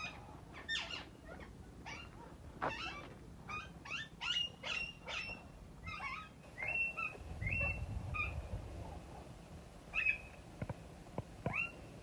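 Parrots calling: a run of short, harsh screeches, many sliding down in pitch and some ending in a brief whistle-like note, repeated irregularly.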